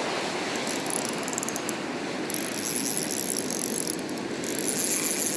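Trabuco Xenial 3500SW spinning reel working against a hooked corvina: a steady, fast clicking of its mechanism.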